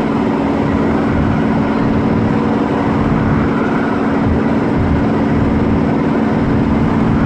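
Dennis Trident 2 double-decker bus with a ZF automatic gearbox driving along, heard from inside the passenger saloon. Its diesel engine and driveline give a loud, steady drone that holds the same pitch throughout.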